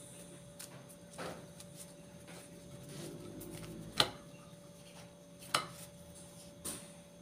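Thin lumpia wrappers being peeled apart by hand and laid on a plate: soft papery rustling with four short sharp taps, the loudest about four seconds in, over a faint steady hum.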